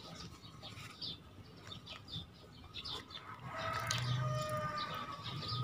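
Small birds chirping throughout. About halfway through, the handle of a freshly cleaned and greased Fugu Tora 4000 spinning reel is cranked, giving a steady low whir that is described as very smooth.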